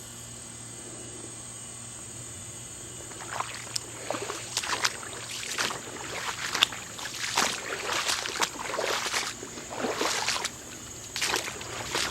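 Footsteps crunching and rustling on the creek bank, irregular steps starting about three seconds in after a few seconds of steady faint hiss.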